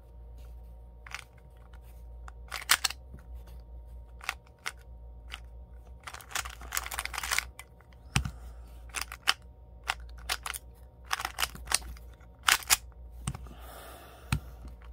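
Plastic 3x3 speed cube being turned by hand: irregular clicks and clacks as the layers snap round, with a few quick runs of turns in a row.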